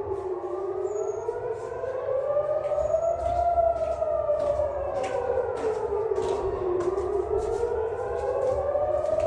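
Civil-defence air raid siren wailing, its pitch rising and falling slowly, about one full rise and fall every six to seven seconds. This is the attack warning that follows the phone pre-alert.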